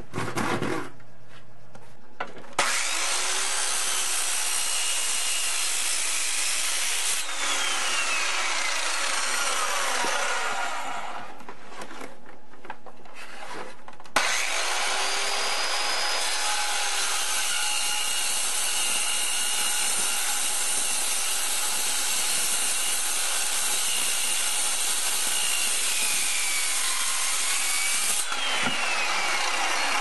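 A saw cutting through wood. A few separate strokes come at first, then long, steady cutting from about two and a half seconds in, easing briefly in the middle before running steadily again.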